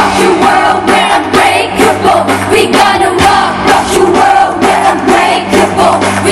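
Loud pop music with female vocals singing over a steady beat, played through a festival sound system during a sound check.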